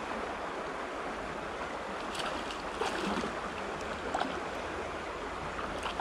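Shallow creek water running steadily, with a few short splashes from a hooked trout thrashing at the surface, one just before the end.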